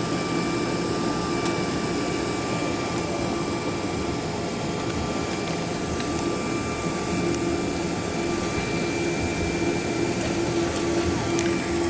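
Steady cabin noise inside a Boeing 777-200ER taxiing on low engine thrust. A steady engine whine of several tones sits over a constant air-conditioning hiss.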